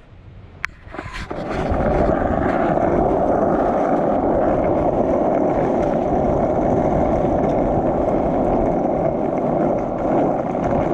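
Skateboard wheels rolling on asphalt down a hill: a short click of the board about a second in, then a steady rolling noise that holds level.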